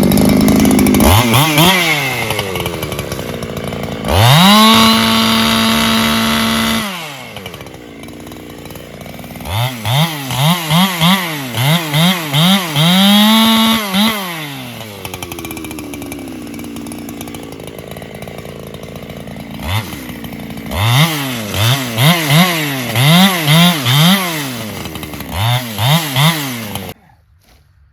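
Solo 681 two-stroke chainsaw trimming out the Dutchman in a felling notch. It is held at full throttle for a few seconds, then revved up and down in quick bursts between stretches of lower running, and it shuts off abruptly near the end.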